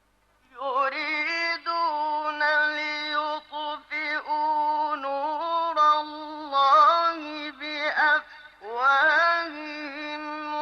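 A male Quran reciter's voice in melodic tajweed recitation (mujawwad style), drawing out long, ornamented held notes. It starts about half a second in and breaks briefly for a breath about eight seconds in.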